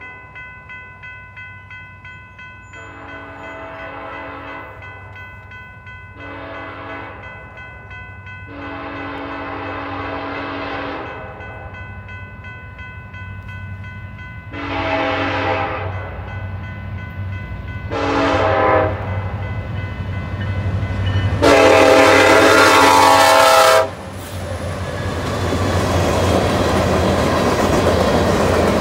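A BNSF diesel freight locomotive's air horn blows six times as the train approaches a grade crossing, each blast louder than the last, the final long one the loudest as the locomotive passes. The passing freight cars follow with a steady rumble and rattle of wheels on rail, growing louder, while a grade-crossing bell rings faintly throughout.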